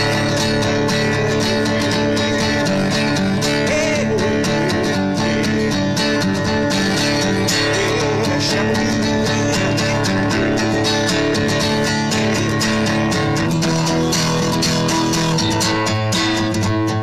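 Steel-string acoustic guitar strummed in a steady, continuous rhythm of chords.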